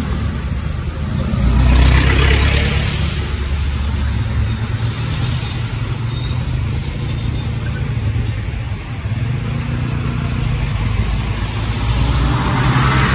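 Motor traffic driving through shallow floodwater: a steady low engine hum from passing trucks, with the spray and hiss of tyres cutting through the water swelling about two seconds in and again near the end.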